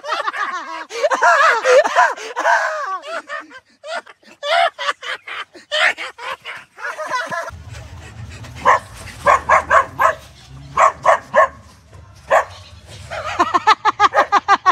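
A dog barking in a run of short barks through the middle, with a man's excited yelling and laughing at the start and near the end. A low rumble comes in about halfway.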